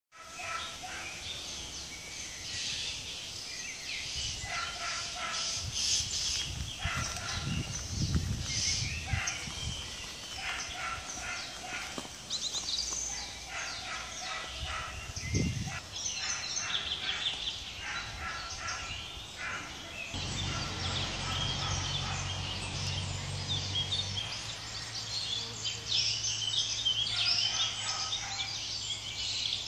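Birds chirping and singing in deciduous woodland, many short repeated calls overlapping. A low steady hum comes in about two-thirds of the way through.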